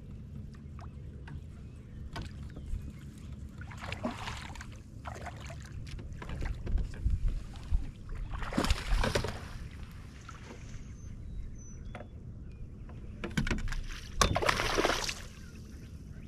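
Water splashing in several loud bursts as a hooked bass thrashes at the surface beside a fishing kayak, over a steady low rumble.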